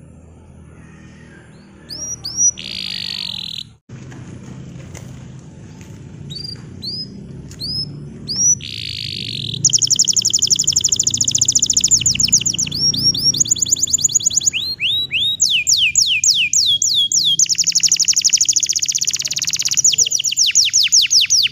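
Domestic canary of the green "hijau botol" colour variety singing: scattered chirps and short phrases at first, then from about halfway long, loud, rapid trills of quickly repeated notes.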